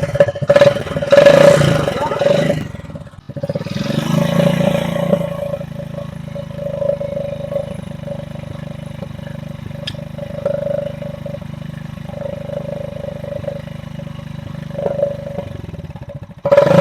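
Hero Passion Pro single-cylinder motorcycle engine, with a Red Bull can tied over the silencer outlet to change its exhaust note, revved in surges over the first few seconds and then idling steadily. A steady tone runs through the sound.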